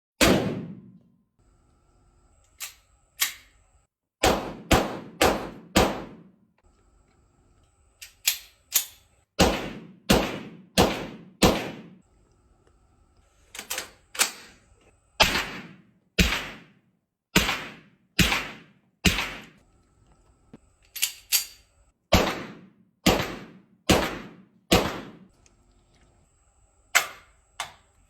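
Gunshots from firearms of different calibres, fired one at a time and in quick strings of two to four shots, each a sharp crack with a short echoing tail, with pauses of a second or two between the strings.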